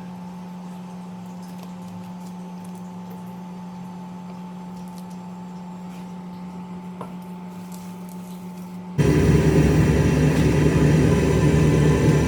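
A steady low electrical hum. About nine seconds in, the loud rushing roar of wok stir-frying starts suddenly, rumbling with a hiss on top.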